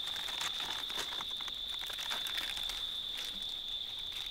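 Stiff pineapple leaves crackling and rustling as hands work through the plant, over a steady high insect drone.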